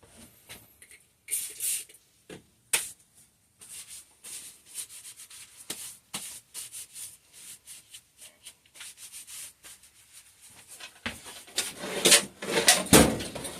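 Metal parts and tools being handled on a workbench during a shock teardown: scattered scrapes, rubs and light clicks, with a denser, louder clatter near the end.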